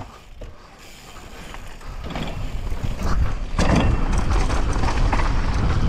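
Mountain bike riding down a dirt bike-park trail: wind rushing on the microphone along with the bike's rumble and many small knocks and rattles. It grows louder over the first few seconds as the bike picks up speed, then holds steady.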